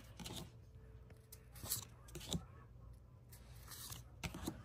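Faint handling of Pokémon trading cards and their foil booster-pack wrapper: a few sharp clicks and snaps at irregular moments, with light rustling between them.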